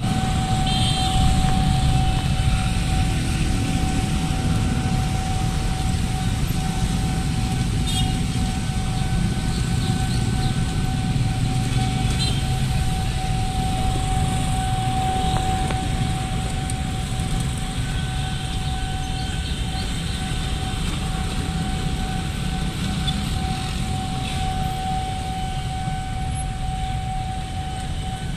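Motorcycle and car traffic running over a railway level crossing, with a steady warning tone from the crossing alarm sounding throughout and a fainter, higher tone coming and going.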